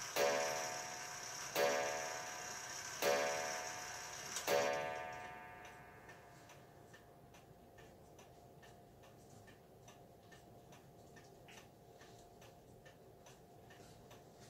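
E. Ingraham eight-day wall clock striking the hour on its coiled wire gong: four ringing blows about a second and a half apart, each dying away. After the last blow fades, about five seconds in, only the steady tick of the running movement remains.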